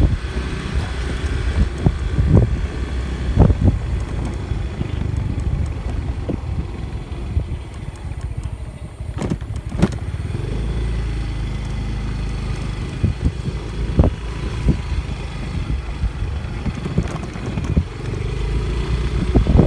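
Motorcycle engine running on the move, with a steady low rumble and a dozen or so sharp knocks and jolts as it rides over a rough, potholed dirt road.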